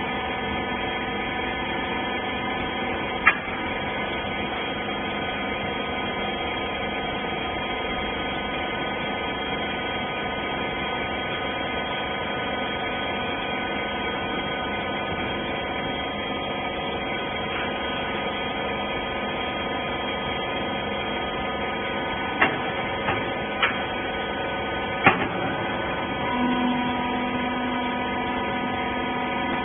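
Wiper baler machine running with a steady hum of several tones, its hydraulic pump motor working. There are sharp clicks about 3 seconds in and a few more about three-quarters of the way through, and a new steady tone joins near the end.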